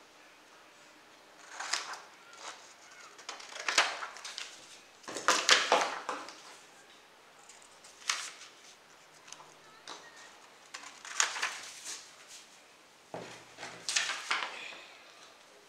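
Sheets of printer paper rustling and sliding on a wooden table as they are picked up and laid out side by side, in short, irregular bursts a second or two apart.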